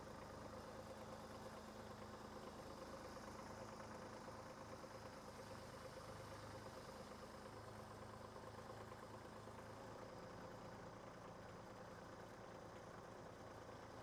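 Faint, steady hum of an engine idling, likely the gas engine of a log splitter or a compact tractor's engine; its low hum shifts slightly in pitch about ten seconds in.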